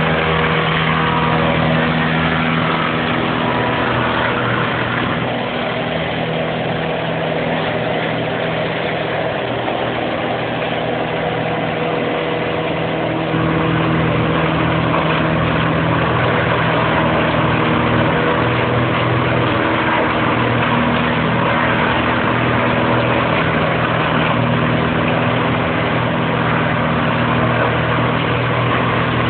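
Duratech 2009 tub grinder with its Cat C9 diesel engine running steadily under load while it grinds, a dense mechanical din over the engine's hum. It gets louder about halfway through.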